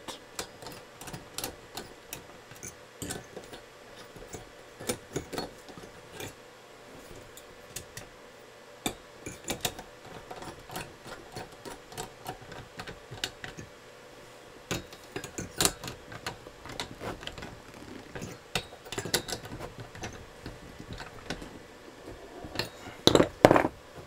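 Scattered light metal clicks and taps from a hand socket driver turning the aluminium nuts that clamp a heatsink onto a CPU. The socket fits with a bit of play, so it rattles on the nuts. A louder clatter comes near the end.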